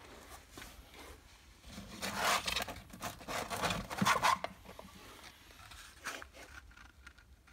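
Cardboard eyelash boxes with a glitter-paper covering scraping and rustling against one another as a hand works one loose from a tightly packed shelf and pulls it out. The rubbing comes in uneven bursts from about two seconds in, with a few faint scuffs later.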